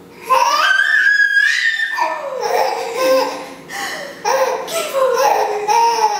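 Five-month-old baby laughing out loud in a run of belly laughs and high squeals.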